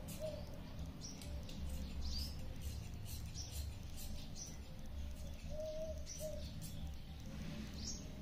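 Scissors snipping through thin georgette fabric in a run of short cuts, with birds chirping and a low cooing call twice about five and a half seconds in, over a steady low hum.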